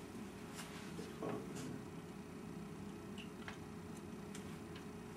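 Quiet room tone with a low steady hum and a few faint, scattered light clicks, with one soft knock about a second in.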